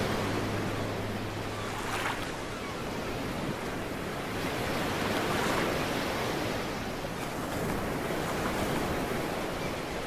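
Ocean surf: a steady wash of breaking waves that swells around the middle. A low steady hum carries on for the first two seconds, then stops.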